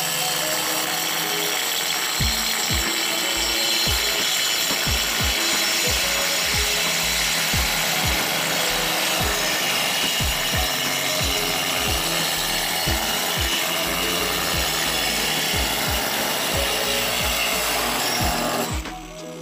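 DeWalt angle grinder spinning a 5-inch vacuum-brazed diamond hole saw, cutting dry through porcelain tile with a steady, harsh grinding noise. The grinder stops near the end as the hole breaks through.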